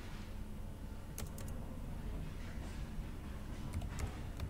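Faint, scattered keystrokes on a computer keyboard as a short word is typed and corrected. A quick run of clicks comes just over a second in and a few more near the end, over a low steady hum.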